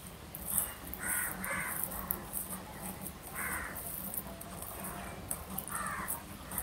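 Crows cawing: four harsh caws, two close together about a second in, one midway and one near the end. Soft clicky squishing of rice being mixed by hand runs underneath.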